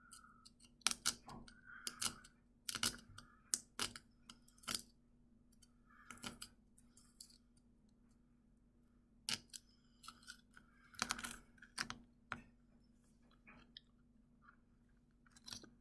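Needle picking and scraping at a disc of hardened sugar honeycomb (dalgona) candy: sharp, irregular small clicks and cracks with short quiet gaps between them.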